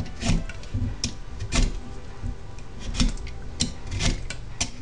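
Vegetable peeler scraping strips of skin off a raw butternut squash in quick repeated strokes, about two a second, against a wooden cutting board.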